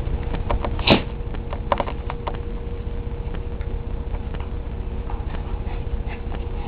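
A dog and cat scuffling: a handful of light clicks and taps, with one sharp knock about a second in, then only a steady low rumble with a faint hum.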